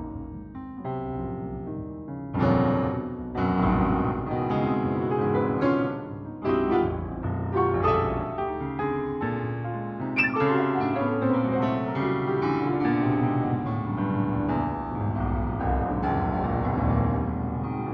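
Piano music, a melody over chords with many struck notes, getting louder about two and a half seconds in.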